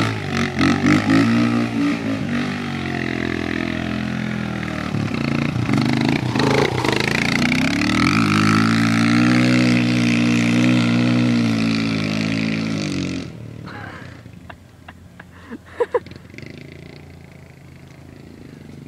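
Kawasaki KLX dirt bike engine revving hard, its pitch rising and falling repeatedly as the rear wheel spins and slides through deep mud. About thirteen seconds in the sound drops away sharply, leaving a much quieter engine and a few short knocks.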